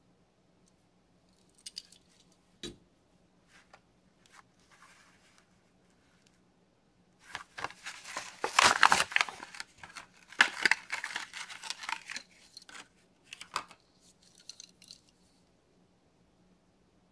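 Hot Wheels blister pack being torn open: a few faint clicks and rustles, then from about seven seconds in several seconds of crackling plastic blister and tearing card, dying down to a few crinkles.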